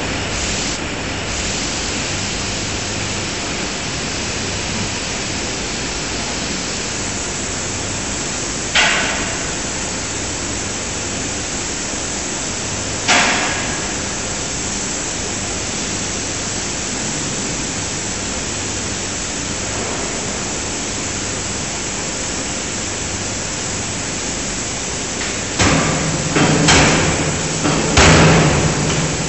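C90 450 kJ fully hydraulic die-forging hammer striking hot steel on the die. First come two single blows about four seconds apart, then a quick run of about five blows near the end. Each blow is a sharp bang with a short ring, heard over a steady hum and hiss.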